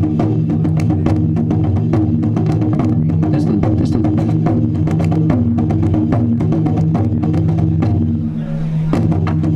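Music with sustained low tones under a busy beat of quick percussion strikes. The low tones drop out briefly near the end, and a strike brings them back.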